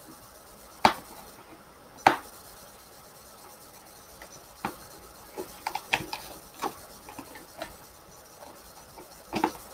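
Hands unpacking a boxed hair straightener: cardboard and plastic packaging knocking and clicking as it is handled, with two sharp loud clicks about one and two seconds in, then a run of smaller taps and clicks.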